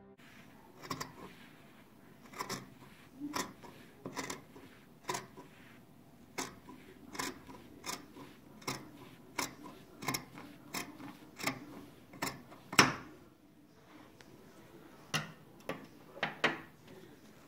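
Scissors cutting through lab-coat fabric, snipping about once a second with one louder snip near thirteen seconds in, then a short pause and a few quicker snips near the end.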